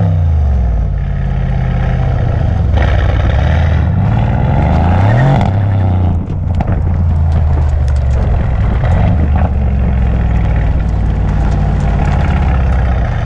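Mercedes-AMG C63 S twin-turbo V8 through a valve-controlled exhaust: the revs fall at the start, climb in a rev for about a second and a half and drop off around five seconds in, with a few crackles just after, then the engine holds a steady note.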